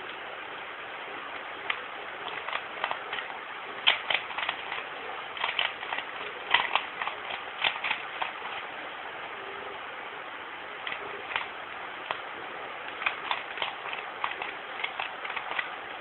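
Plastic 3x3 Rubik's cube being turned fast in a speed solve, its layers clacking in irregular bursts of quick clicks, over a steady hiss. The clicking thins out for a few seconds in the middle before picking up again.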